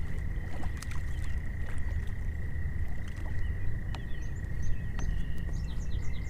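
Outdoor ambience on a lake: a steady low rumble and a steady high whine, with several short high chirps from about four seconds in.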